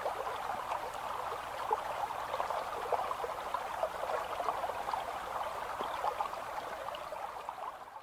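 Shallow stream running over rocks, a steady rush of water with many small splashes and droplet plinks, fading out near the end.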